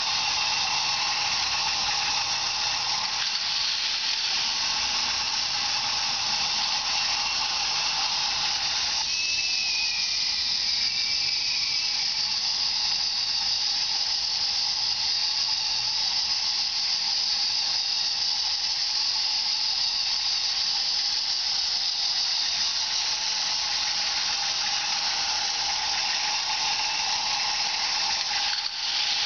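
K'nex Screamin' Serpent roller coaster running: the small electric motor driving the plastic chain lift gives a steady whir, with the plastic cars rolling on the track. A lower hum in the whir drops out about nine seconds in.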